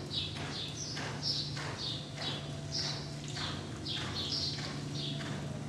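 Hanoverian mare cantering on the sand footing of an indoor arena: a steady rhythm of hoofbeats, a few a second, over a steady low hum.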